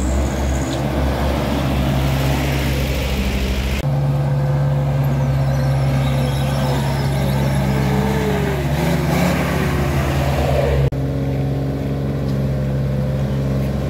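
Diesel truck engines pulling up a steep, rough hill, a steady low drone with a wavering higher tone over it. The sound changes abruptly twice, about four and eleven seconds in.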